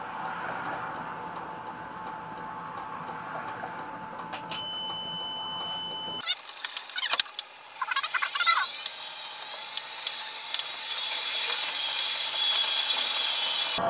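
Tram cab at a standstill, a steady electrical hum with a high tone sounding for under two seconds near the middle. About six seconds in the cab sound cuts off abruptly and an edited-in track of high sliding, warbling tones takes over.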